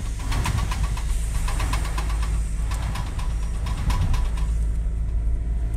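Damaged constant-velocity (CV) joint on a drive shaft making a rapid scraping, clicking noise as the car turns, heard inside the cabin over the steady rumble of the engine and road. The clicking fades out near the end. Scraping with the turn of the wheel is the sign of a worn, under-lubricated CV joint.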